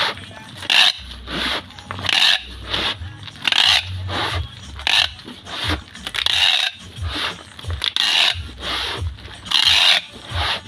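Brown packing tape pulled off a handheld tape dispenser and stuck down around a cardboard parcel: a rasping screech of tape unrolling, repeated about once a second, with a few soft low knocks from the parcel being handled.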